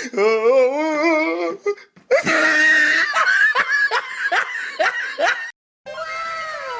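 Edited-in comedy sound effects. First a wavering, wobbling voice-like tone for under two seconds, then a loud burst of laughing that pulses a few times a second for about three seconds. After a brief silence, a cascade of overlapping falling tones begins near the end.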